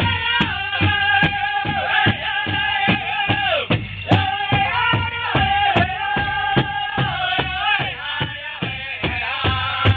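Pow wow drum and singers: a drum struck in a steady beat, about two and a half beats a second, under voices singing long held notes that fall away at the ends of phrases.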